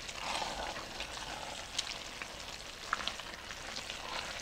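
Wooden spoon stirring egg noodles, ground beef and a sour cream and Parmesan sauce in a hot enameled cast-iron Dutch oven. Under a steady sizzle, the spoon gives scattered light clicks and scrapes against the pot.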